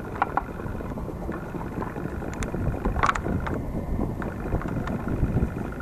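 Wind rumbling on the microphone as a steady, irregular low noise, with a few brief high chirps, the clearest about three seconds in.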